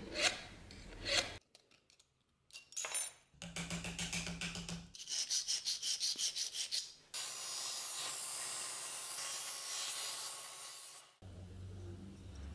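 Metalworking on thin brass sheet: a couple of scraping strokes of a scriber, then a hand file rasping across the brass edge in quick, even strokes about six a second. A steady rasping hiss follows for about four seconds, then it stops suddenly.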